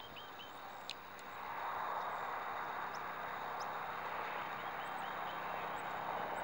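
Jet engines of a Boeing 767-300ER airliner on final approach, a steady rushing noise that swells about a second and a half in and then holds, with a faint high whine sliding slowly down near the end.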